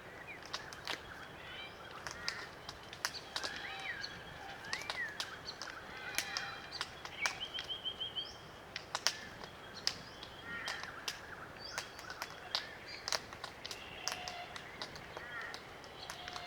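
Small flock of glossy black cockatoos feeding on Allocasuarina cones: frequent sharp clicks as the cones are cracked, with short, soft creaking calls scattered among them.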